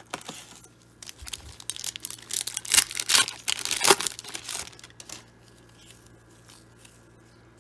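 Foil trading-card pack being torn open and crinkled: a rush of crackling from about a second in, loudest in the middle, dying away after about five seconds.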